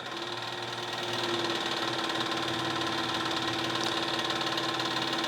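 Nakamichi LX-3 cassette deck's tape transport running in rewind: a steady whirring drone with a fast knocking rattle, which the owner thinks comes from the idler, though he allows it could be something else.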